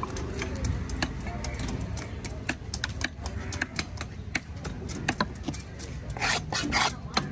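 A large knife tapping and chopping on a wooden chopping block as tuna is cut into pieces, giving many quick, irregular sharp taps. About six seconds in come two longer scraping sweeps of the blade across the block.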